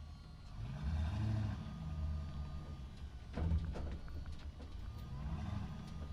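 A motor running with a low hum and rising and falling in pitch twice, with a short clatter of knocks about halfway through.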